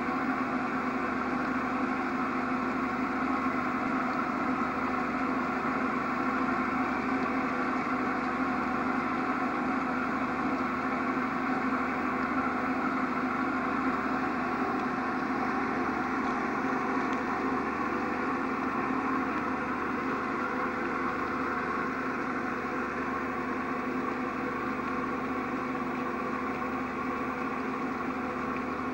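Steady engine hum, holding one pitch and level throughout.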